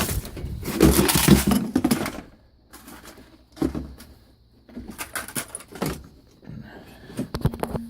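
Tools and hard cases being handled and rattled in a tool chest: a loud clattering burst about a second in, then scattered clicks and knocks.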